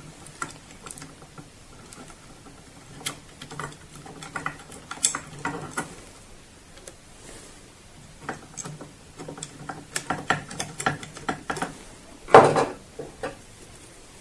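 Crosshead screwdriver turning small screws into a printer's top plate: scattered light clicks and scrapes of metal on metal, with one louder knock about twelve seconds in.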